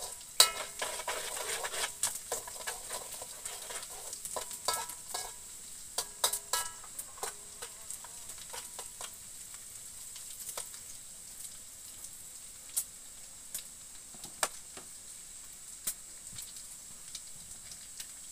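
Garlic sizzling in oil in a metal wok over a gas burner, with a metal spatula scraping and clinking against the wok as it is stirred. The spatula strikes come thick and fast for the first several seconds, then only now and then over the steady sizzle.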